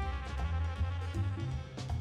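Jazzy background music with brass and a drum kit: held horn notes over a steady drum beat.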